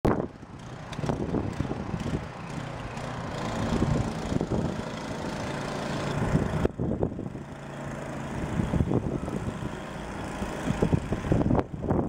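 Wind buffeting an outdoor microphone: an uneven low rumble that comes and goes in gusts.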